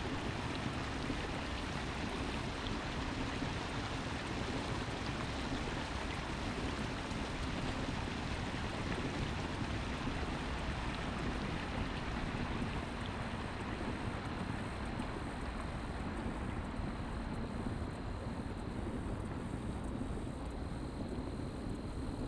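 Steady rushing noise like wind on a microphone, with a low steady hum underneath.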